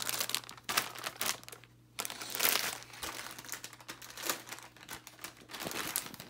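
Plastic packaging crinkling and rustling irregularly as it is handled while makeup wipes are fetched from a pack.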